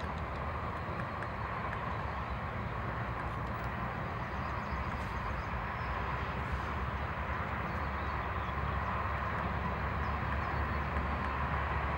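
Steady low rumble of distant traffic, slowly growing a little louder, with a few faint high ticks over it.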